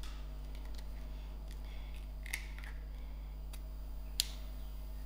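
Faint crackles and clicks of an eggshell being broken open by hand and pulled apart over a plate, with a sharper click about four seconds in.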